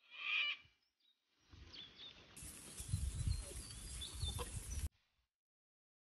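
A short, high animal call, then outdoor background noise with a low rumble and a brief pitched call, cutting off suddenly near the end.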